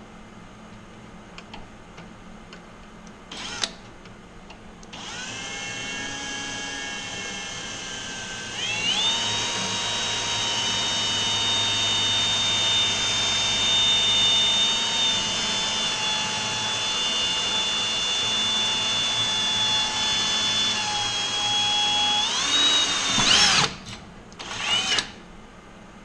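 Cordless drill whining as it match-drills holes through the aluminium seat belt bracket and airframe. The motor starts about five seconds in, steps up in speed a few seconds later, runs steadily, then rises briefly and stops, with a few clicks after.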